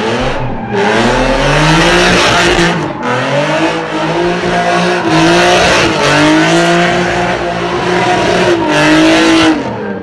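A drift car's engine revving hard, its pitch climbing and falling again several times as the throttle is worked, over a steady hiss of spinning, squealing tyres.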